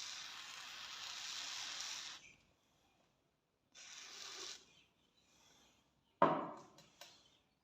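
Hand rubbing on rusty metal during rust removal: one long abrasive stroke and a shorter one, then a sharp knock and a lighter knock a second later.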